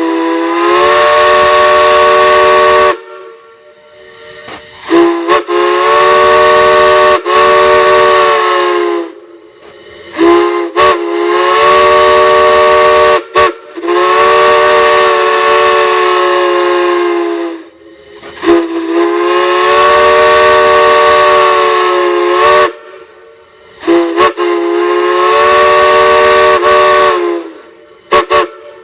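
A large chime whistle sounding several notes together as a chord, with a hiss of escaping steam or air. It is blown in a series of long blasts of two to four seconds, mixed with short toots, and each blast slides slightly up into pitch as it opens.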